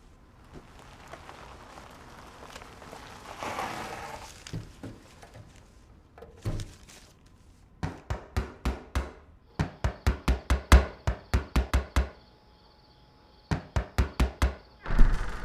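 Rapid sharp knocks, about four or five a second, in two runs separated by a short pause, after a few seconds of faint rustling noise.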